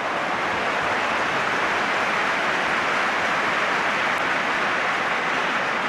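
Large football stadium crowd roaring in a steady wall of noise, reacting to a goalkeeper's save from a header off a corner.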